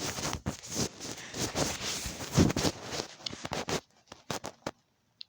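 Homemade slime being squeezed and stretched in the hands: a dense sticky crackling that stops about four seconds in, followed by a few last clicks.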